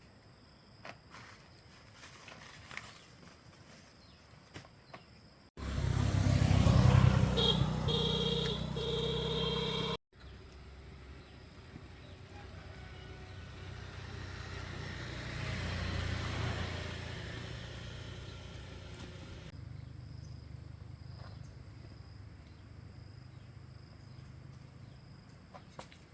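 A motor vehicle engine starts up loud and suddenly about five seconds in. A steady high note joins it partway through, and the sound cuts off abruptly a few seconds later. Then a vehicle passes by, swelling to a peak and slowly fading away.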